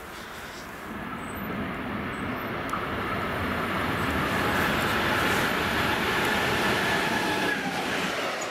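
Electric locomotive hauling a freight train of covered sliding-wall wagons, approaching and passing at speed: a steady rushing rumble of wheels on rail that builds from about a second in and is loudest as the wagons go by, with a thin high whine over it in the middle.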